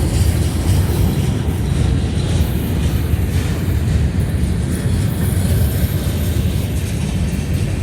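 Freight train rolling past, a steady low rumble of wheels and cars on the rails.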